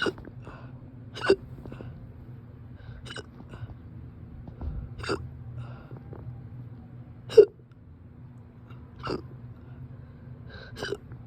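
A person with a persistent bout of hiccups, hiccuping about seven times at roughly two-second intervals, each one short and sharp.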